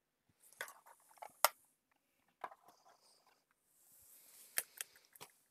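Small retail packaging handled by hand: a few light clicks and taps of card and plastic packets being put down, with soft plastic rustling, the sharpest tap about a second and a half in.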